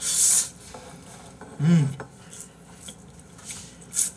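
Spaghetti being slurped loudly: a long slurp at the start and a shorter one near the end. A brief hummed sound comes from an eater in between.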